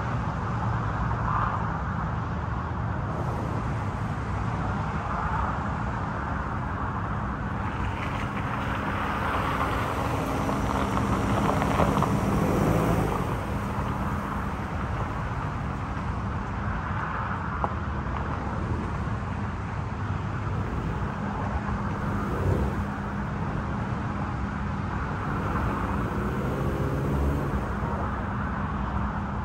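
A 2018 Subaru Outback's engine running at low speed as the car rolls down a gravel slope, with its tyres crunching on the gravel. The sound grows to its loudest about twelve seconds in as the car passes close by, then settles back to a steady low engine note, with one sharp click about twenty-two seconds in.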